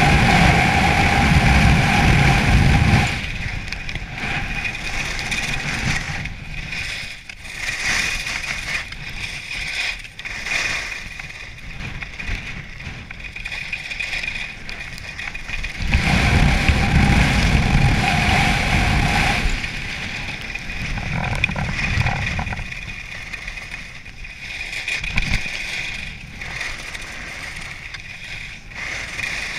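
Skis scraping and carving on packed snow with wind rushing over a helmet-mounted camera during a downhill ski run. The sound swells louder twice, near the start and about halfway through.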